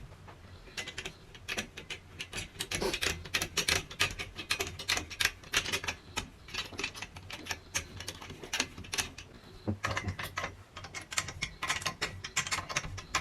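Rapid, irregular ratcheting clicks from a pressure-fit stair gate's tensioning mechanism being tightened against the stair frame, with a short lull about ten seconds in.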